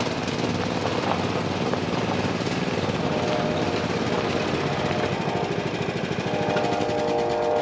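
Small side-by-side utility vehicle's engine running as it drives up and pulls in, a steady pulsing engine note that starts suddenly.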